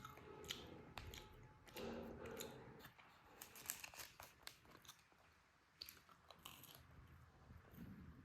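Faint crunchy chewing and biting, close up: a run of short irregular crunches and clicks, densest about two seconds in.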